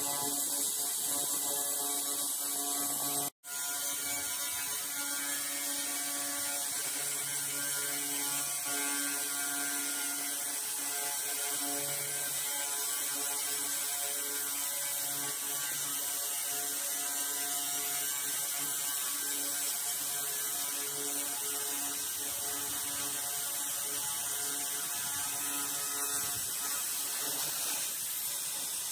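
Handheld 300 W pulsed fiber laser cleaner running with a steady, rapid buzzing hiss as it burns paint and rust off metal. The sound cuts out for an instant about three seconds in.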